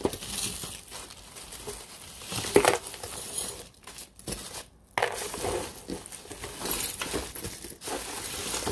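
Jewelry clinking and jingling as beads, metal links and chains are handled and pulled out of a lot, with irregular small clicks and rustling. The loudest clatter comes about two and a half seconds in, and another comes about halfway through.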